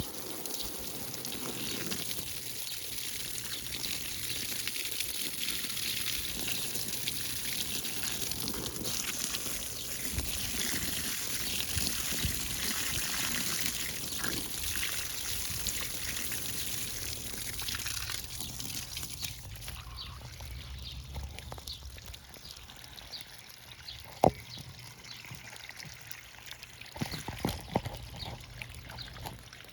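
Water pouring steadily, cutting off about two-thirds of the way through; a few sharp knocks follow near the end.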